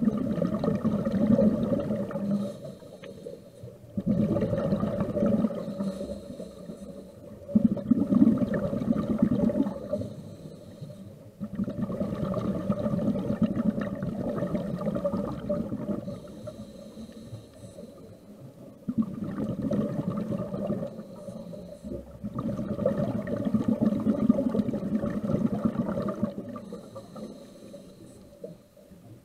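Scuba diver breathing through a regulator underwater: bubbling exhalations that swell for a few seconds, alternating with quieter inhalations, roughly every four seconds.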